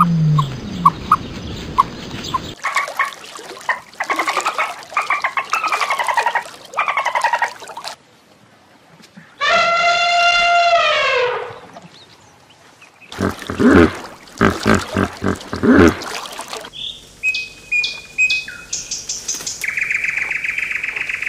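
A run of different animal calls. First come short chirps and falling chirp series. About ten seconds in an elephant trumpets once for about two seconds, and the call drops in pitch at the end. Then come rapid pulsed calls and, near the end, high whistled notes.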